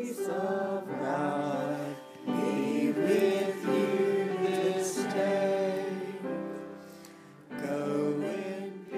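Choir singing a hymn, several voices in harmony, in sung phrases with short breaks about two seconds in and again near the end.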